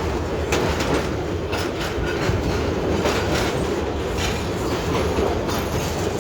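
Passenger train running along the track, heard from on board a railcar: a steady rumble with irregular clicks from the wheels on the rails.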